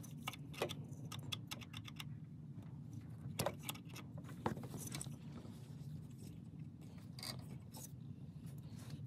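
Small, irregular metal clicks and ticks of pliers gripping and working the stub of a snapped alternator tensioner bolt, over a steady low hum.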